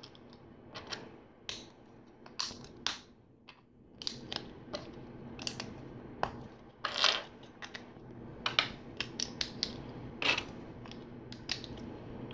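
LEGO bricks clicking and clacking as they are handled and pressed together: a string of sharp, irregular plastic clicks, the loudest about seven seconds in.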